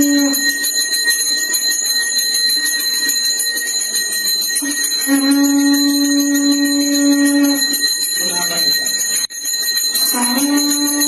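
A puja bell rung continuously, its high ringing unbroken. A long steady low note is held for about two and a half seconds in the middle, and another begins near the end.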